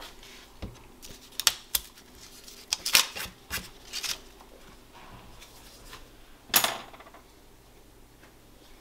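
Glass mugs clinking and knocking as they are handled and set down on a wooden chopping board: a run of sharp clicks and clatters in the first half, then one louder, longer clatter about two-thirds of the way in.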